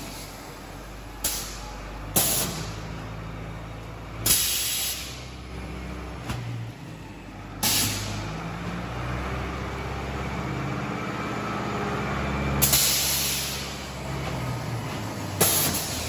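Silage bagging press with bag vacuuming in operation: a motor drone with shifting low tones, broken by about seven sudden sharp hisses of air, the longest lasting about a second, two-thirds of the way through.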